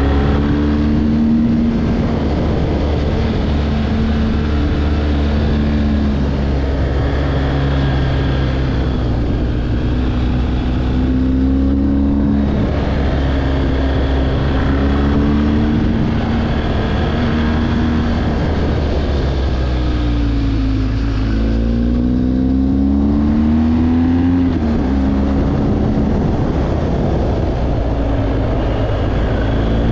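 A road vehicle's engine running under load, its pitch repeatedly rising as it accelerates and dropping as the throttle eases or gears change. About two-thirds of the way through the pitch falls away, then climbs in a longer rev, all over steady wind and road noise.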